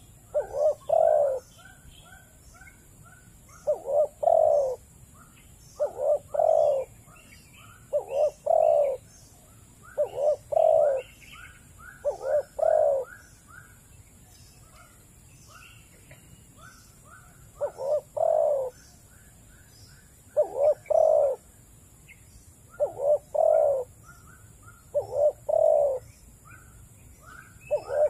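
Dove cooing loudly and repeatedly, each phrase a pair of deep coos recurring about every two seconds, with short higher chirps in between.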